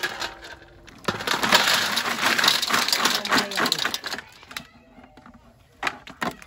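Clam shells clattering against one another in a dense rattle of many quick clicks for about three seconds, then two sharp clicks near the end.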